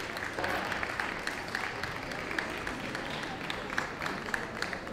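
Audience applauding, a steady patter of many hand claps.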